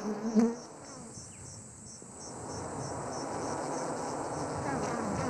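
Wild bees buzzing around a raided nest, fading within the first half second. Then insects chirp in an even rhythm, about two chirps a second, over a thin high steady whine, typical of crickets.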